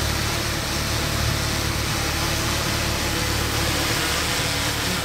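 DJI Inspire quadcopter hovering close overhead, its propellers making a steady whir.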